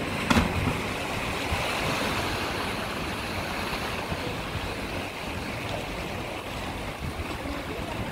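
A person's body hitting the sea with a single splash just after the start, over a steady wash of waves against the rocks.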